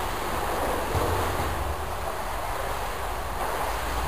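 Indoor swimming pool ambience: a steady wash of water noise from swimmers moving and splashing in the pool, with a low rumble underneath.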